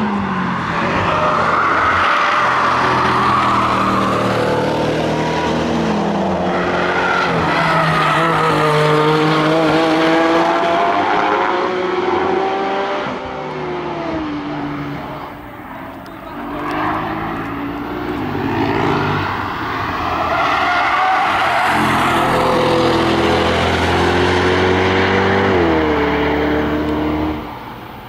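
Several high-performance cars passing one after another at speed, their engines revving up through the gears and dropping in pitch at each gearchange or lift, with brief lulls between passes.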